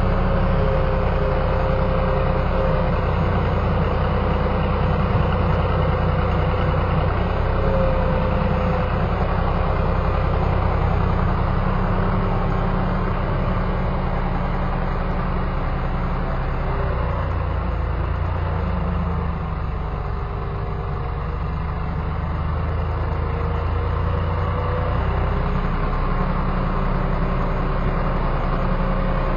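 Kioti CK20 compact tractor's three-cylinder diesel engine running as the tractor drives and works its front loader. The engine note is steady, then dips and comes back up about two-thirds of the way through.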